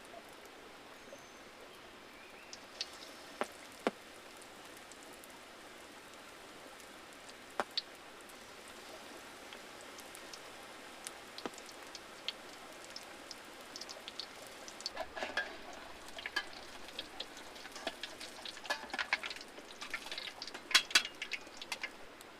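Raindrops pattering on a surface over a steady hiss of rain: scattered single drops at first, then a thicker run of louder ticks toward the end.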